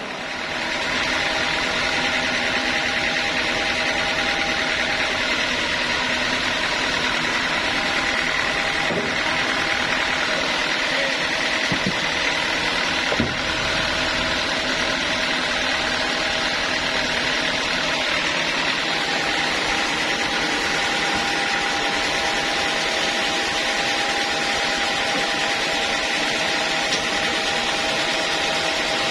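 Sawmill machinery running steadily, a continuous mechanical hum with a steady high whine, and a small knock about halfway through.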